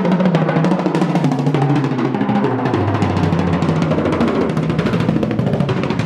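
Music with rapid, dense drumming over a bass line.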